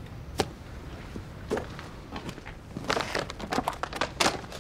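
Clothing rustling and shoes scuffing on pavement, with a sharp click about half a second in and a quick run of scuffs and clicks near the end.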